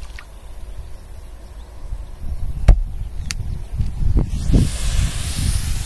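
Wind rumbling on the microphone, with a sharp click a little over halfway in, a lighter one just after, and a few low thumps. A hiss rises over the last second and a half.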